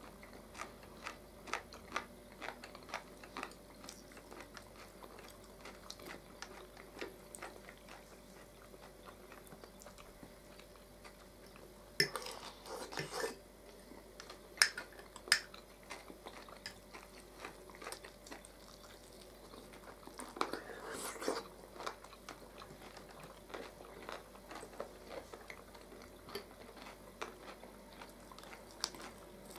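Two people eating at a table, close to a clip-on microphone: chewing and biting, with short clicks of forks on plates. There are louder clatters about twelve to fifteen seconds in and again around twenty-one seconds.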